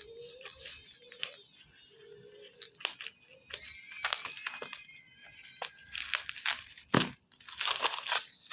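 Packaging being handled: plastic wrap crinkling and tearing, with scattered clicks and a sharper knock about seven seconds in.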